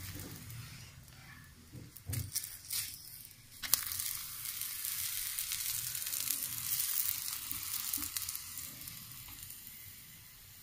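Oil sizzling under an onion paratha on a hot tawa, with a steel spoon scraping and tapping as it spreads the oil, sharpest about two and almost four seconds in. The sizzle eases off near the end.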